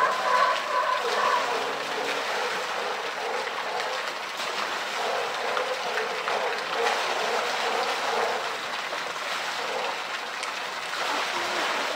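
Pool water sloshing and splashing as a polar bear swims and pushes a plastic float, over a steady wash of moving water.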